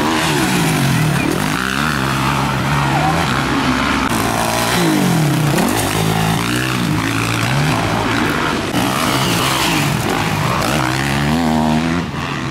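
Motocross bike engines revving hard on the track, their pitch climbing and dropping again and again with throttle and gear changes, at times two engines overlapping.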